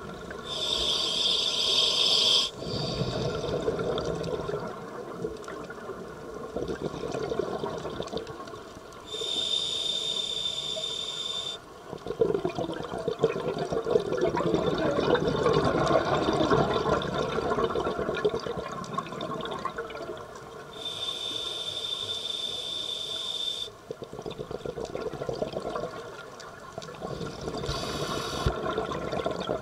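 Scuba diver breathing through a regulator, heard underwater: four hissing inhalations through the demand valve, each with a steady high whistle, alternating with the longer bubbling rush of exhaled air, the loudest about halfway through.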